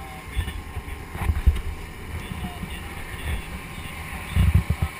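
Wind buffeting the microphone in gusts aboard a moving inflatable workboat, loudest about a second and a half in and again near the end, over a steady hum from the boat's motor.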